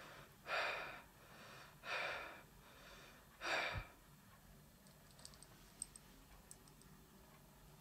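A person breathing heavily: three loud rushes of breath about a second and a half apart, the third ending in a soft bump. Then a few faint clicks.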